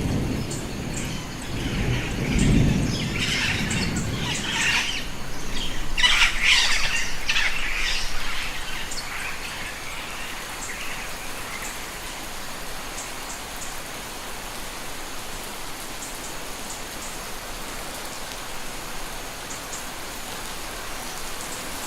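Rain forest ambience of steady rain, with a low thunder rumble in the first few seconds and a burst of bird calls over the first third, loudest about six to eight seconds in. After that it settles to rain alone, with faint high chirps.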